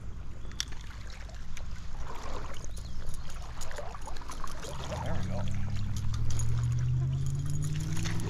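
Stream water running steadily through a riffle. About five seconds in, a low engine hum from a motor vehicle comes up and keeps going, slowly rising in pitch.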